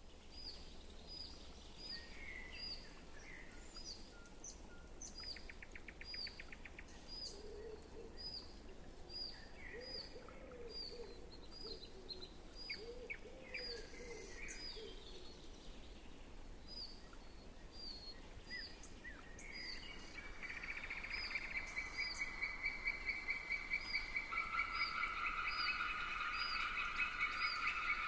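Woodland birdsong: one bird repeats a short, high, falling call about twice a second, with scattered calls from other birds. About two-thirds of the way in, a frog chorus starts up with a fast, even trill and soon becomes the loudest sound.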